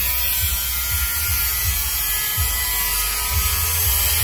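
Handheld electric angle grinder running steadily while it cuts sheet metal.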